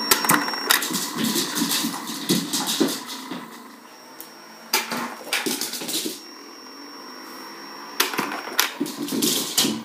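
Three bursts of knocks and clatter from a small dog chasing mini tennis balls fired by an iFetch automatic ball launcher, with a faint high steady whine in the quieter gaps.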